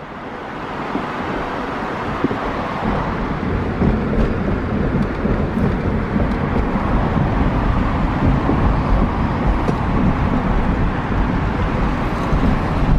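Vehicle on the move: steady road rumble and wind noise, growing a little louder over the first few seconds.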